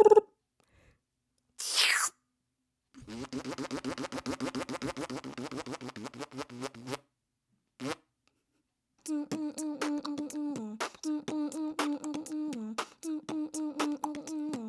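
Beatboxed imitation of a galloping horse, made with the mouth: a short falling whistle, then a fast buzzing trill, then quick rhythmic tongue clicks like hooves over a hummed note that dips and returns.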